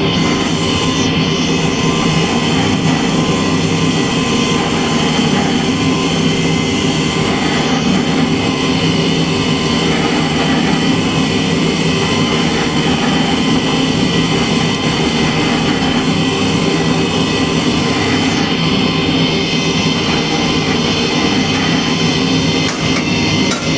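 Electric pipe threading machine running steadily: its motor and gear drive spin a 3-inch (80 mm) mild-steel pipe while the wheel cutter is screwed in by hand to cut through it.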